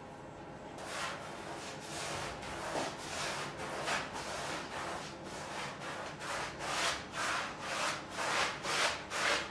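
Wide flat paintbrush swishing dark paint across a large white painting surface in quick back-and-forth strokes, about two a second. The strokes start about a second in and grow louder toward the end, laying down a dark ground.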